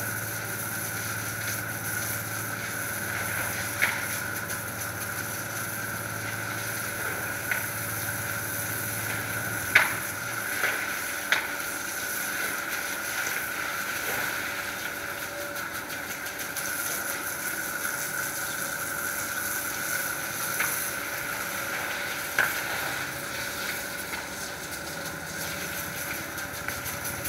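Steady hiss of water spraying from a hose onto wet paving tiles, with a low hum that stops about ten seconds in and a few sharp clicks.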